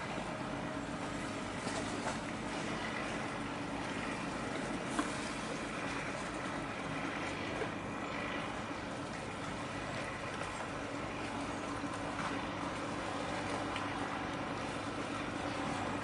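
Steady mechanical engine drone with a constant hum, over general waterfront noise, and a single sharp tick about five seconds in.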